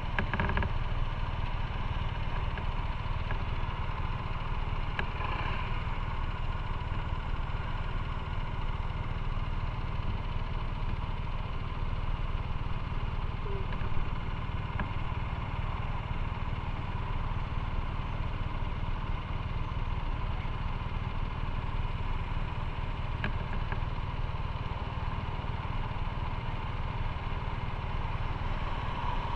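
Motorcycle engine idling steadily while stopped in traffic, with a single short click about halfway through.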